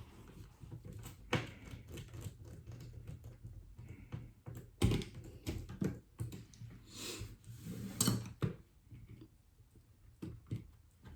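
Small clicks and taps of tools and small parts being handled while corner screws are put back into an iPad mini, with a brief rustle about seven seconds in.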